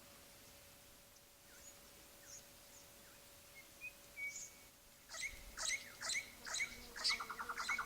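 Orange-bellied parrots calling: a few faint chirps at first, then from about five seconds in a run of sharp, repeated chirps about two a second, joined near the end by a fast buzzy trill.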